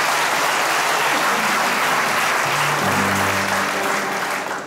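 Audience applauding steadily, with a few low electric guitar notes played about two and a half seconds in; the applause falls away sharply near the end.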